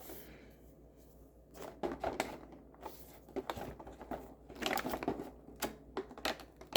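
Fingers picking and prying at a cardboard door of an advent calendar box: irregular scratching, scraping and small clicks, busiest about two seconds in and again near five seconds.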